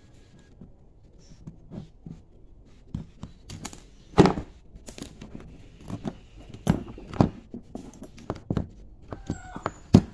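Sharp plastic clicks and snaps from a Toyota Vios combination switch being handled and pried apart, its housing clips popping. The loudest snap comes about four seconds in, and another comes near the end.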